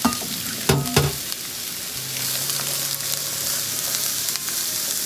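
Sliced onions sizzling in hot coconut oil in a pan as they are stirred, a steady frying hiss. A brief knock, the loudest moment, about a second in.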